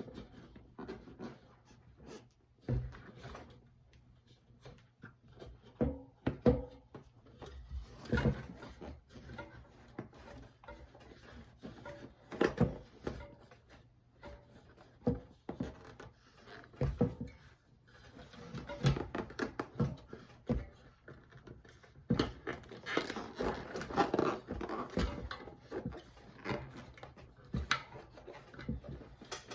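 Irregular clicks, knocks and rubbing from hands working an inner tube out of a fat electric-bike tire, with longer stretches of rubbing about two thirds of the way through.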